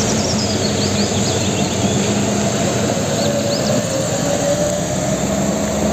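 Fuel tanker truck driving along a wet road: steady engine running with a continuous hiss of tyres on the wet surface, and a few faint high chirps.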